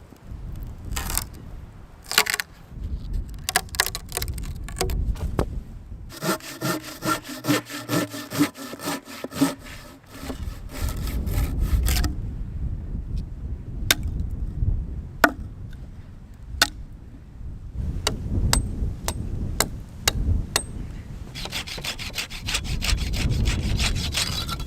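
Hand saw cutting wood in repeated back-and-forth strokes, steadiest in the middle stretch, with sharp cracks of wood later on. Wind rumbles on the microphone underneath.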